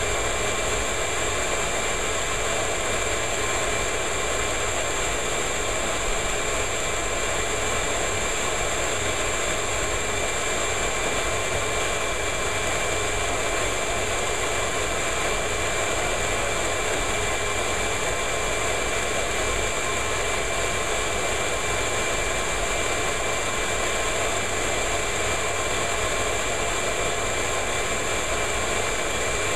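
Ridgid shop vacuum running steadily, its hose nozzle sucking lint and dust out of the inside of an electric dryer. A constant rush of air with a steady high whine over it.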